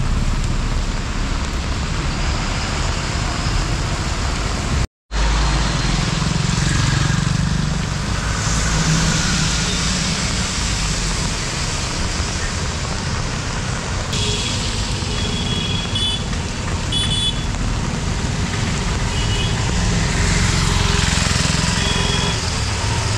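Steady road traffic on a wet road: vehicle engines rumbling and tyres hissing over the water, with a few short high beeps about two-thirds of the way through. The sound cuts out for a moment about five seconds in.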